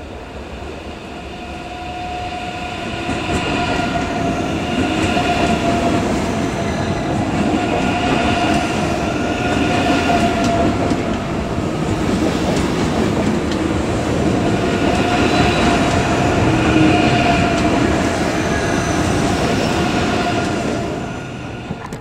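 ICE 3 high-speed electric train moving past on the platform track. Its running gear gives a steady whine with a few tones that swell and fade every couple of seconds as the cars go by, over the rumble of wheels on rail. The sound builds over the first few seconds and drops near the end.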